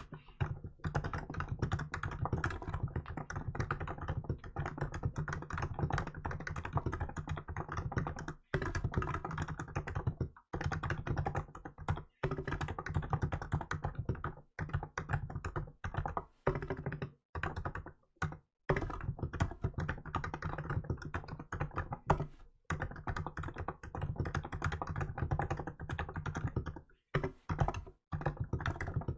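Fast typing on a Hansung GK868B electrostatic capacitive (non-contact) keyboard with milk keycaps: a rapid, dense run of keystrokes broken by brief pauses every couple of seconds.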